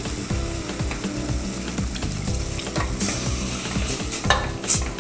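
A spoon stirring and scraping flour-and-butter roux in a stainless steel pot as milk is worked in for a béchamel, with a light sizzle from the pan. The scrapes come irregularly, with a few sharper strokes near the end.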